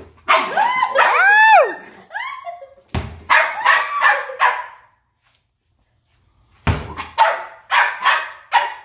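Corgi puppy barking at a basketball held out of its reach, a frustrated, demanding play-bark ("he's so mad"). It opens with a few high yelps that rise and fall in pitch, then gives runs of sharp barks, about two or three a second, with a short silent break in the middle.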